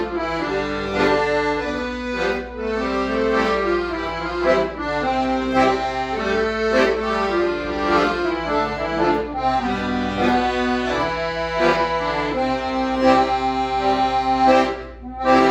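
Todeschini Artist 4 accordion playing a melody over sustained chords, with a brief break near the end before the playing resumes.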